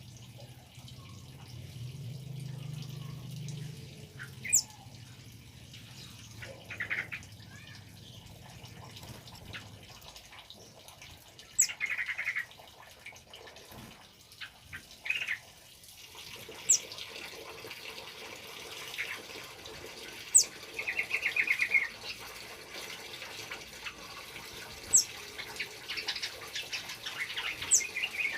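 Male kemade songbird calling in scattered bursts: short, piercing high whistles that drop in pitch, and brief rattling trills. A steady trickle of water comes in about halfway through.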